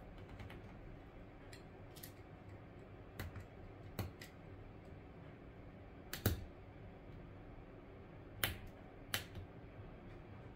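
Small sharp clicks and taps, about seven at irregular intervals, from a thin pointed repair tool working against the opened internals of a Samsung Galaxy A20e phone, over a faint steady hum.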